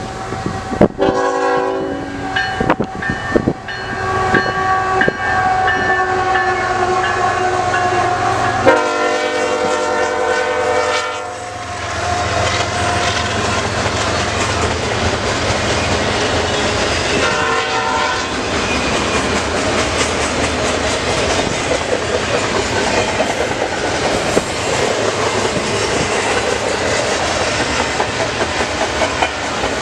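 CN freight train's diesel locomotives sounding the horn several times as they approach and pass, the loudest blast about nine seconds in and a short last one near the middle. Then the double-stack intermodal cars roll by with a steady rumble and the clickety-clack of wheels over rail joints.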